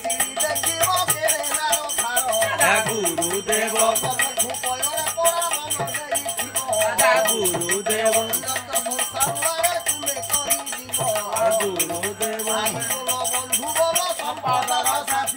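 Group devotional singing (kirtan) with a khol drum and small brass hand cymbals (kartal) clashing in a steady ringing rhythm throughout, under several men's voices singing a Bengali devotional chant.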